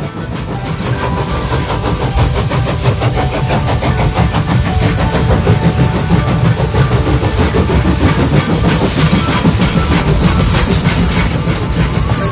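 Park road train passing close by: the tractor unit's engine running and the carriages rolling over the road, rising in level over the first couple of seconds.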